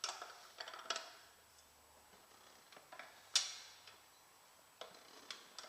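Scattered sharp clicks and knocks from a tyre-fitting tool being worked round a motorcycle wheel rim to lever the tyre bead on, with one louder knock about halfway through.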